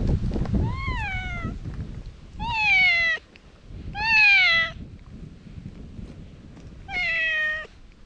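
Calico cat meowing loudly four times, each call under a second long, rising briefly and then falling in pitch.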